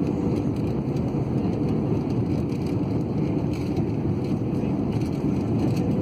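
Airliner cabin noise: a steady low rumble of the engines and rushing air, heard from inside the cabin as the plane comes in to land.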